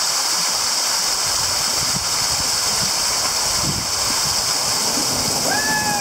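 Small waterfall splashing onto lake water: a steady hiss, with a kayak being paddled into the falling water. A brief falling whoop near the end.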